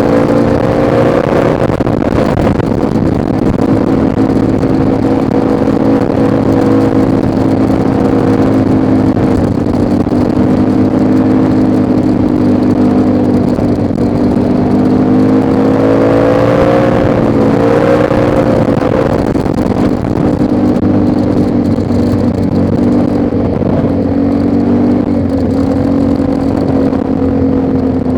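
ATV engine running steadily while riding, its pitch rising briefly about two-thirds of the way through as the throttle opens, then dropping back.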